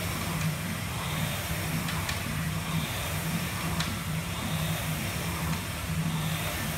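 Air rowing machine's fan flywheel whirring steadily, swelling and easing with each stroke of the handle at a steady rowing rhythm.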